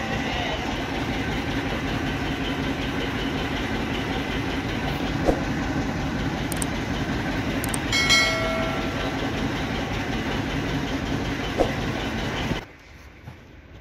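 Steady, rhythmic machine running noise that cuts off abruptly near the end. A short electronic chime with a click sounds about eight seconds in.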